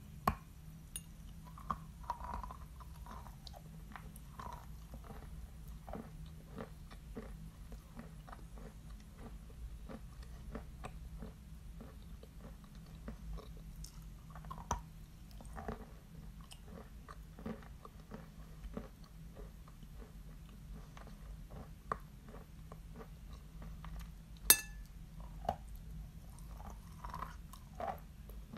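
Barsuk chalk being bitten and chewed close to the microphone: a steady run of small crunches, about two a second, with a few louder sharp cracks at the bites, the loudest a few seconds before the end.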